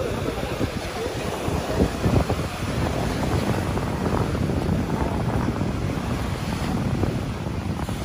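Wind buffeting the microphone over small waves breaking and washing up on a sandy beach, rising and falling in gusts.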